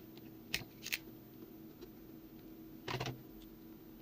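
A few light clicks and taps of tools handled on a workbench while desoldering, twice in quick succession near the start and a short cluster about three seconds in, over a faint steady hum.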